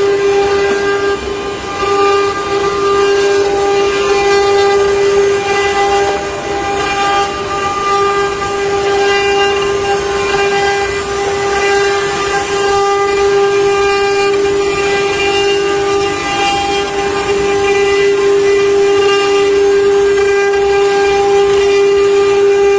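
Spindle motors of a multi-head CNC wood-carving router running together: a steady high-pitched whine with a rough haze of the bits cutting into wood beneath it.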